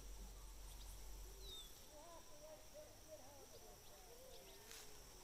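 Faint lakeside ambience: distant people's voices calling from about two seconds in, over a steady high insect drone and an occasional bird chirp.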